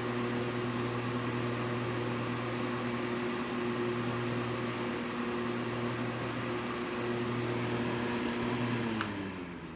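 2008 Wexford mini box fan running on low: a steady motor hum with rushing air, its bearings a little scratchy even though just lubricated. Near the end a click, then the hum falls in pitch as the motor slows down.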